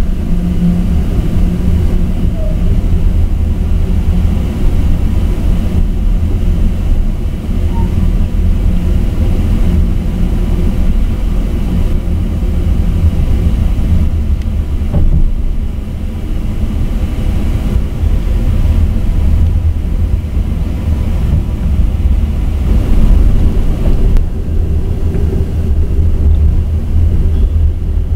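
Steady low rumble of an Amtrak Southwest Chief passenger train in motion, heard from inside the passenger car: wheels running on the rails and the car's running noise.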